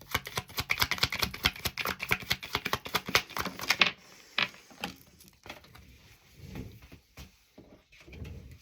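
Tarot cards being shuffled by hand: a quick run of dense clicking and flicking for about four seconds, then a few scattered taps and soft handling noises.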